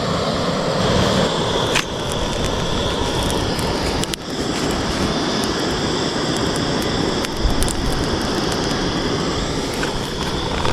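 Wood fire of large logs in a portable suspended fire pit, crackling with scattered sharp pops over a steady rushing noise.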